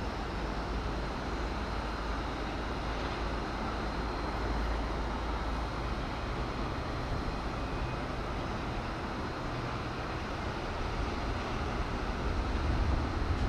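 Steady outdoor background noise: a low rumble under a broad hiss, like distant traffic and harbour machinery, with no distinct event. The rumble grows a little louder near the end.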